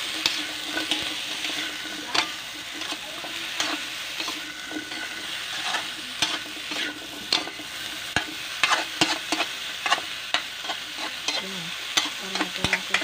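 Squash and long beans sizzling in a metal wok while a metal spatula stirs them, scraping and clinking against the pan in irregular sharp knocks over a steady hiss of frying. The knocks come thicker in the second half.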